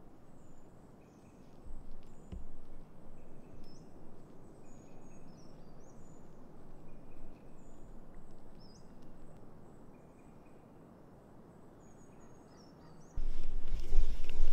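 Small birds calling, short repeated chirps and quick upswept notes over a steady hiss. About a second before the end, loud rumbling and rubbing handling noise starts as the handheld camera is moved.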